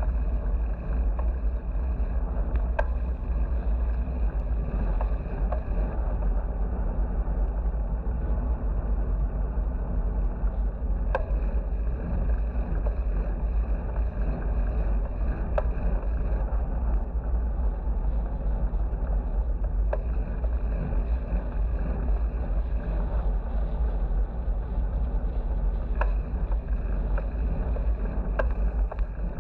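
Steady wind rumble on a bike-mounted action camera's microphone, with road noise from riding along a highway. A few light, sharp ticks are scattered through it.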